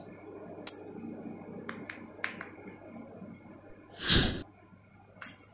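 A metal spoon clicks a few times against a small bowl while scooping baking soda, then a single short, loud breath noise about four seconds in.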